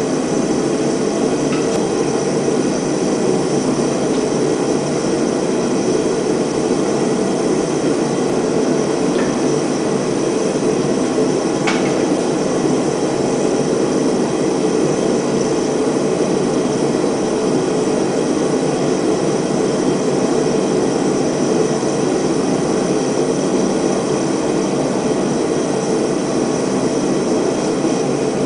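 Gas forge burner running with a steady, even rushing noise as a knife blade is heated in its flame for hardening.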